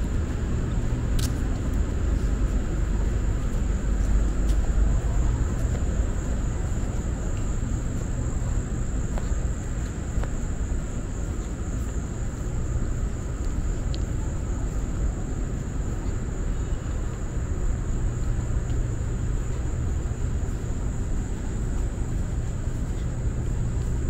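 Outdoor ambience: insects trilling in one steady, even high band over a constant low rumble.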